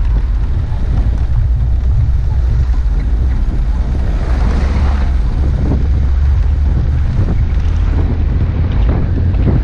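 A 4x4 driving on a snow-covered track, heard as heavy wind buffeting on the microphone over a low, steady rumble. There is a brief rush of noise about four seconds in.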